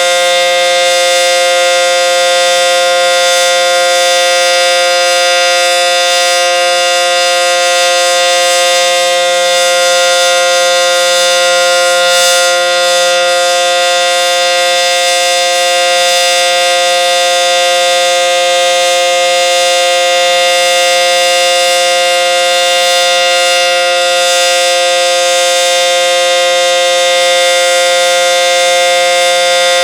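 ACA Banshee 115 outdoor warning siren sounding a steady Full Alert tone, held at one pitch without rising or falling. This is the steady alert signal of its weekly test.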